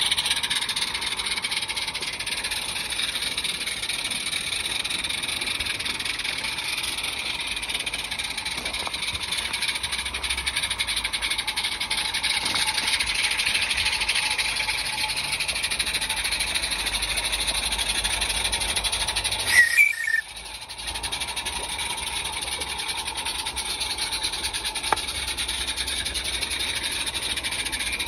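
Live-steam garden railway locomotives hissing steadily. A brief loud sound with a couple of short tones comes about two-thirds of the way through, and a single click near the end.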